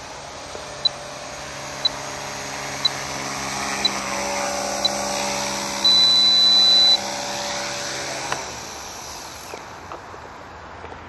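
Small radio-controlled flying model's motor whining with a steady pitched hum that grows louder, then cuts off with a click about eight seconds in. Over it, a high electronic beep sounds once a second, ending in one longer beep of about a second.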